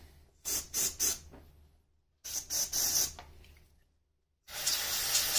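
Aerosol spray can fired in three bursts of hiss into the ports of a diesel injector, flushing fluid through its internal passages; the first burst comes as a few quick spurts.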